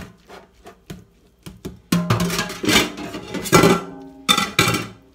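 A metal fork clicking and scraping against a stainless steel colander of ground beef as it is stirred to drain the grease. From about two seconds in, louder music comes over it.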